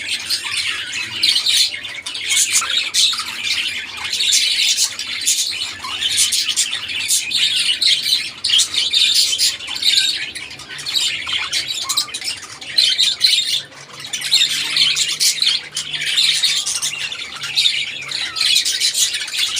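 Flock of budgerigars chirping and squawking together: a continual, busy chatter of many overlapping calls, rising and falling in waves.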